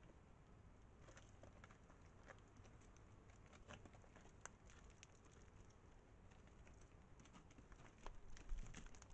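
Near silence with faint, scattered clicks and taps of desert bighorn sheep hooves on rock, becoming louder and more frequent near the end as a sheep walks.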